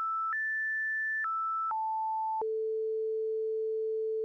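Continuous synthesized sine-wave tone from the Oscalate app, its pitch changed in sudden jumps as the frequency is transposed by a ratio. It steps up once, then down three times, and holds a steady lower tone from about two and a half seconds in.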